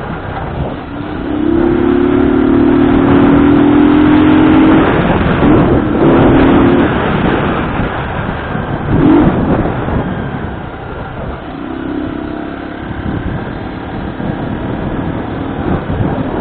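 Motor vehicle running on the move with heavy wind noise on the microphone; a steady pitched note sounds for several seconds starting about a second in and returns more faintly later.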